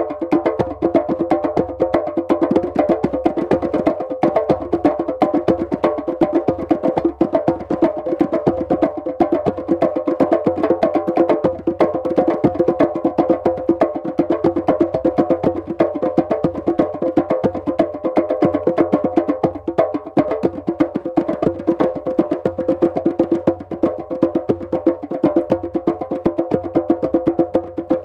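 Djembes played with the hands in a fast, steady rhythm of dense strikes, with no pause.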